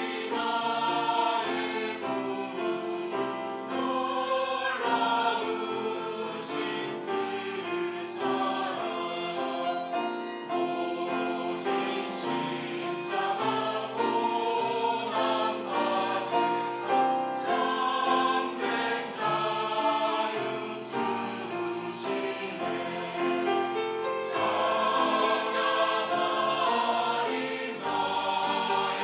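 Church choir singing an Easter anthem in several parts, with held chords moving from note to note throughout.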